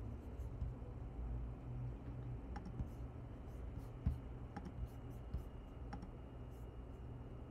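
A handful of sharp, scattered clicks of a computer mouse and keyboard, starting about two and a half seconds in, over a steady low hum.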